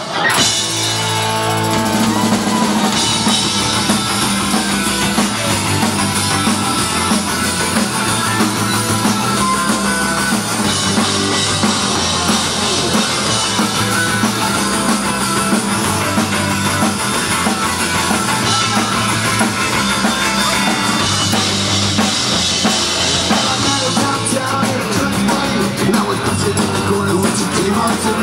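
Live rock band playing at full volume, with a drum kit, electric guitars and a bass guitar riffing in a steady repeating pattern.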